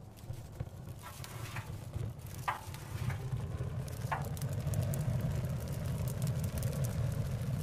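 Low, steady rumble of road traffic, building louder over the first few seconds, with a few short high squeaks in the middle.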